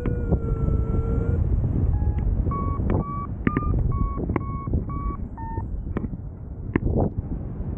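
Paragliding variometer beeping over steady wind noise. The short beeps near 1 kHz come about two a second through the middle of the stretch, shifting a little in pitch from beep to beep; such beeps are the vario's sign of climbing in lift. At the start a longer, lower tone glides slightly down, and a few sharp clicks break in.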